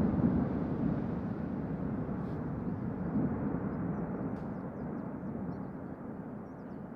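Deep rumble of the Cumbre Vieja volcano erupting on La Palma, slowly dying away after a blast.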